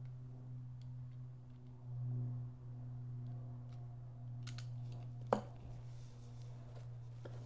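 Small metal clicks and taps of a screwdriver and screw working in an Edison Triumph phonograph motor's switch bracket, with one sharp knock about five seconds in, over a steady low hum.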